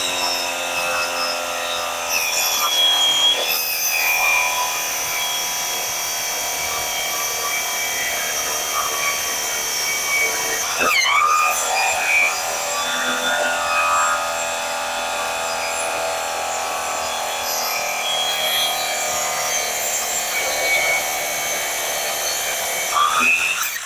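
Electric drill converted to a saw with a circular wood-cutting blade, running steadily while cutting through plywood: a constant motor whine over the rasp of the blade in the wood.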